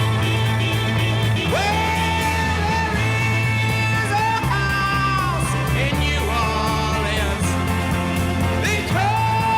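Rock music: a steady bass line under a lead line that slides up into long held notes, once about a second and a half in and again near the end.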